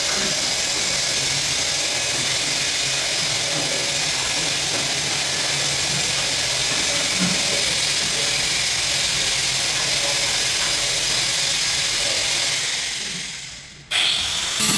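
A machine running with a steady hiss that dies away over about a second near the end, then starts again abruptly.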